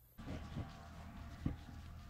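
Faint at first, then from a fraction of a second in, rustling and handling in grass with a few soft thumps, the loudest about one and a half seconds in, over a steady low rumble.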